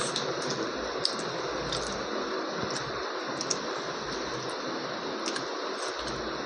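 Eating egg curry and rice: scattered small wet clicks and smacks, a few a second, with a sharper one about a second in, over a steady background hiss.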